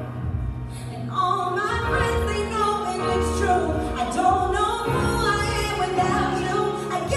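Brazilian Zouk dance music: a song with a voice singing a melody over a steady low bass line, played through the room's sound system.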